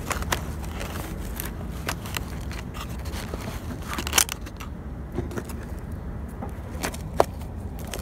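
Fingers pressing and scraping potting soil in small thin plastic nursery pots, with scattered crackles and clicks from the soil and flexing plastic. The sharpest clicks come about four seconds in and again near the end, over a steady low rumble.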